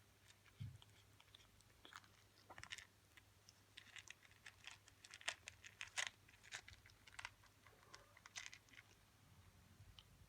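A kitten crunching dry kibble, with irregular quiet crunches and bites, a few louder ones about halfway through.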